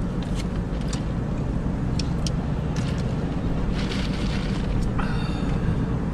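Steady road and engine rumble heard inside a moving car's cabin, with a few short, sharp clicks and crackles over it in the first few seconds.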